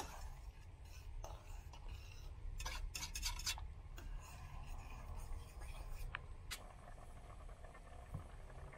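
A spoon stirring soup in a stainless steel pot, with a few light clicks and scrapes against the pot, over a faint low hum.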